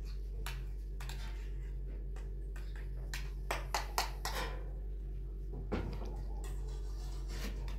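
A spoon and bowl handled over a gas stove: a quick run of light clicks about halfway through and a single knock a couple of seconds later, over a steady low hum.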